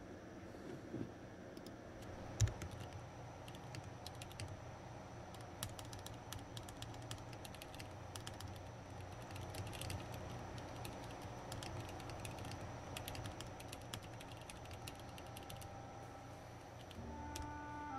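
Typing on a mechanical computer keyboard: a steady patter of key clicks, with one louder thump about two and a half seconds in. Near the end, soft music with held tones comes in.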